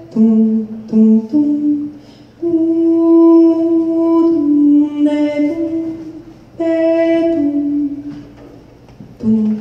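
A woman's solo jazz vocal sung without accompaniment into a microphone: phrases of long held notes with short pauses between them.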